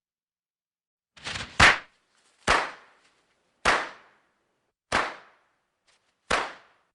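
Firecrackers going off one at a time: a short crackle leads into the loudest bang about one and a half seconds in, then four more sharp bangs follow roughly every second and a quarter, each dying away quickly.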